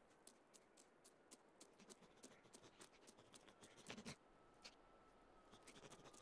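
Faint scratching and many light ticks of an animated squirrel scrabbling and scurrying on snow, with a louder scuff about four seconds in.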